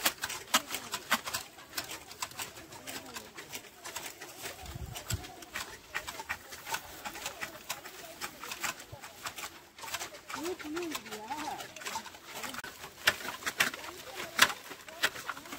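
Hand-held tea-plucking shears snipping through tea bushes: quick, irregular metallic clicks, several a second. A short wavering low call, like a dove's coo, sounds about two-thirds of the way in.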